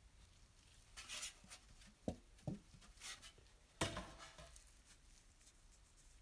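A few faint scrapes and small knocks, the sharpest knock about four seconds in: small objects or tools being handled close by in a small room.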